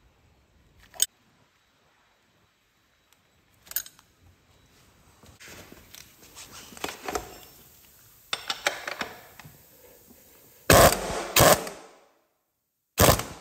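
Hand wrenches working on a motorcycle's chain-adjuster lock nuts: scattered metal clicks and rattling tool handling, then a few loud clanks near the end.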